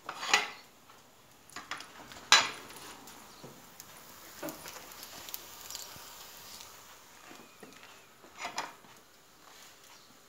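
Spatula scraping and knocking in a frying pan while a crepe cooks: a few short scrapes, the loudest about two seconds in and another near the end.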